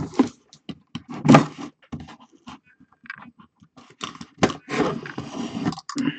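A blade slicing open the seals of a cardboard box, with scraping, tearing, taps and knocks as the box is turned and handled. The loudest is a knock and scrape about a second in, with more scraping bursts near the end.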